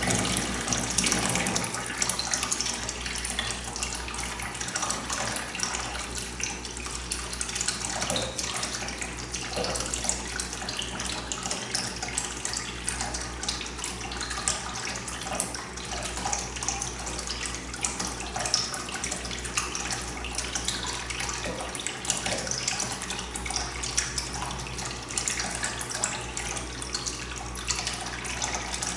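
Water pouring steadily into a tank as it fills, with a faint steady low hum underneath.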